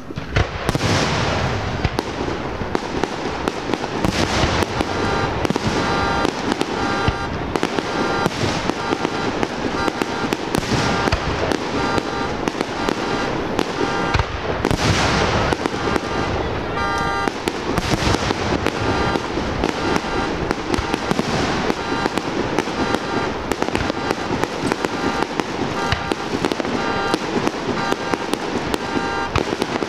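Fireworks display: a dense, continuous barrage of aerial shell bursts going off one after another, with several especially loud bursts standing out.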